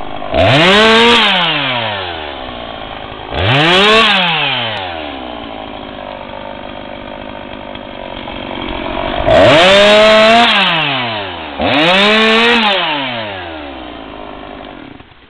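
Two-stroke chainsaw engine throttled up four times: each time the pitch jumps up, holds for about a second, then slides slowly back down to idle.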